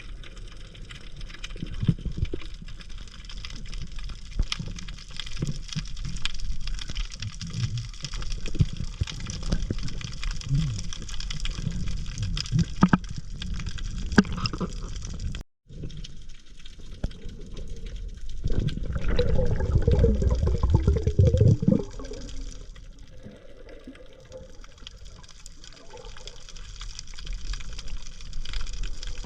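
Water noise recorded with the microphone underwater, with many small scattered clicks. A louder rushing stretch comes about two-thirds of the way through, then it settles quieter.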